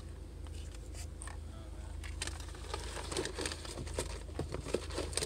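Rustling and scattered clicks of handling noise as the phone rubs against a shirt, thicker in the second half, over the steady low rumble inside a moving car.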